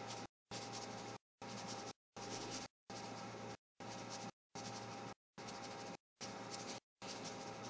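Faint steady recording hiss with a faint low hum, cut by brief drops to total silence about every three-quarters of a second. Any brush-pen strokes on the paper are buried under it.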